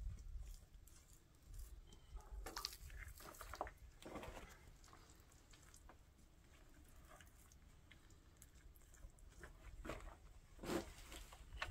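Faint scraping and crunching of bricks being pressed into wet mud mortar and smoothed by hand, in two short clusters: a few seconds in and near the end.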